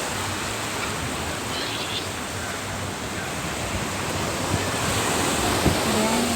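Sea waves washing onto the beach: a steady rush of surf that swells a little toward the end.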